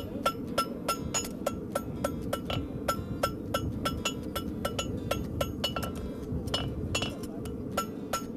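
Farrier's hammer striking a hot steel horseshoe on the anvil in a steady rhythm, about three ringing blows a second, as a heart bar shoe is forged. A steady low rush sounds underneath.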